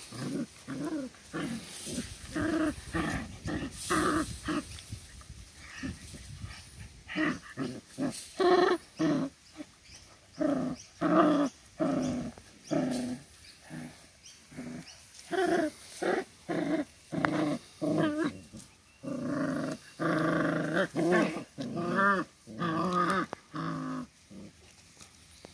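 Seven-week-old Doberman puppies growling as they play-fight: many short growls one after another, with a few longer wavering growls near the end.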